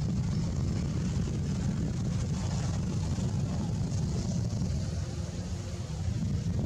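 Steady low rumble of outdoor background noise with no distinct events in it.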